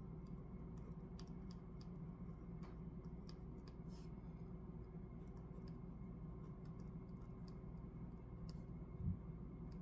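Pen writing on paper by hand: scattered light, irregular clicks and ticks over a low steady hum, with one soft thump near the end.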